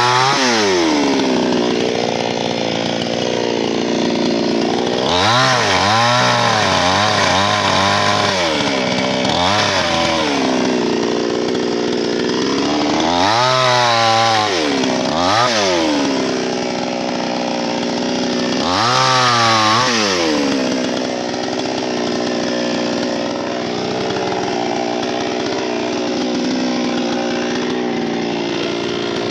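Chainsaw running at high revs while cutting wood. Its engine pitch drops and climbs back several times as the throttle eases and opens again.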